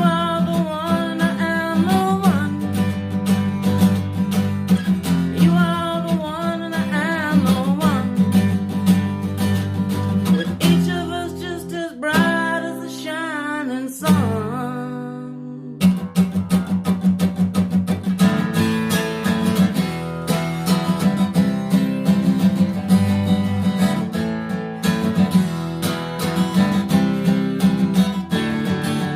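Instrumental passage of a song: acoustic guitar strumming with a wavering lead melody over it. The strumming drops out for a few seconds in the middle, leaving held notes, then comes back.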